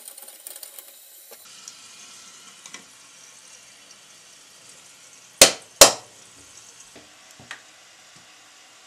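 Two sharp plastic clicks about half a second apart as the push-button flush actuator of an Ifö Cera toilet is pressed down into its seat in the cistern lid, among faint handling ticks and rustles.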